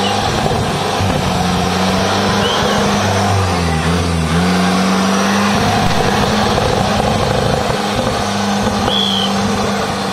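Engine of a pro-modified off-road 4x4 revving hard, its pitch rising and dipping repeatedly as the throttle is worked.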